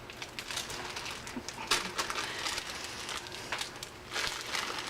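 Packaging crinkling with scattered light clicks and taps as baking ingredients are handled and added to a mixing bowl, growing denser near the end.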